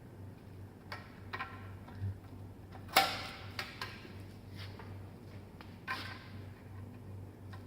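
Metal bicycle headset and stem parts clinking and knocking as they are fitted onto the fork's steerer tube: a string of separate clicks, several with a short metallic ring, the loudest about three seconds in.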